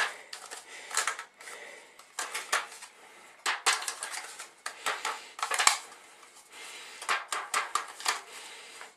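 Aluminium foil takeaway container crinkling and clicking in the hands as olive oil is rubbed around its inside with the fingers to grease it: a run of irregular sharp crackles and taps.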